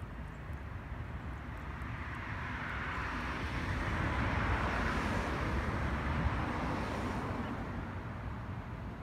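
A passing vehicle: engine and road noise swells over a few seconds, is loudest about midway, then fades away.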